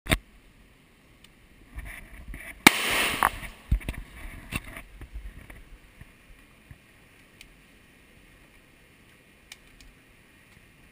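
Pistol shots: a sharp bang right at the start and a louder one about two and a half seconds in, trailing off in a half-second hiss. A few lighter knocks and clicks follow before it settles to a low steady background.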